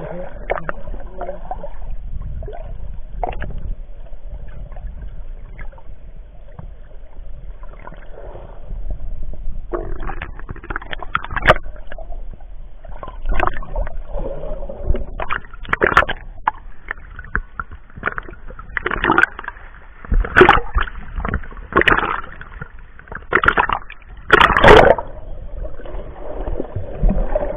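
Seawater splashing and sloshing close to the microphone, in irregular strokes that come thicker and louder from about ten seconds in, over a steady low rumble.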